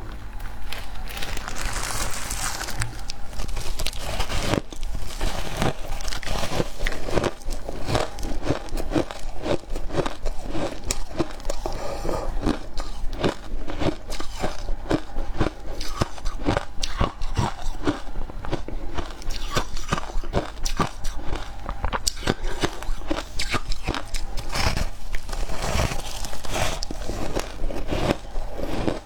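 Close-up crunching and biting of shaved ice coated in milk powder, many sharp crunches in quick, irregular succession as the ice is chewed.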